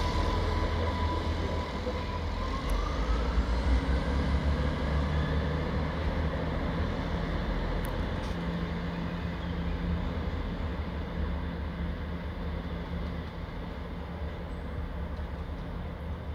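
Diesel train running at the station: a deep, steady rumble with a whine that climbs in pitch about two seconds in, slowly fading.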